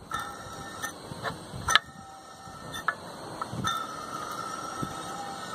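Serpentine-belt tensioner pulley from a Ford 5.4 3V engine spun by hand, its bearing running with a faint steady whine and a few clicks. The bearing is worn enough to need replacing.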